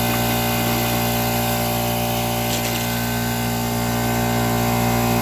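A machine motor running steadily, a loud even hum made of several fixed tones, with a faint tick about two and a half seconds in.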